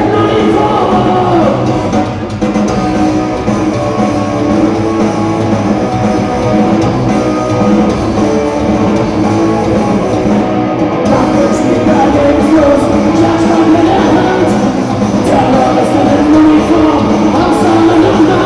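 Live rock band playing loud: a sung lead vocal over distorted electric guitars, bass guitar and a drum kit.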